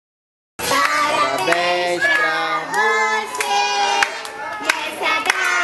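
Young children singing a song together, with scattered hand claps. It starts suddenly about half a second in, after silence.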